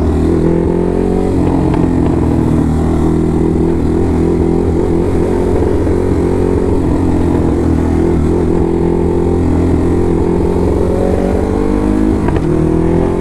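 Ducati Hypermotard's V-twin engine running under way as the motorcycle is ridden, its pitch drifting up and down and rising near the end as the rider speeds up.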